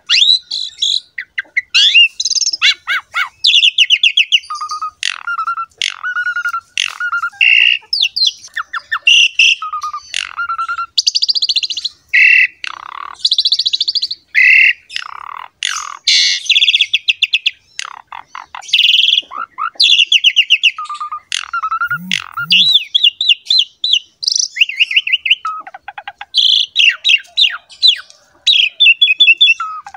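Pied starling (jalak suren) in full song: a loud, almost unbroken run of varied phrases mixing clear whistles, buzzy rattling notes and harsh squawks.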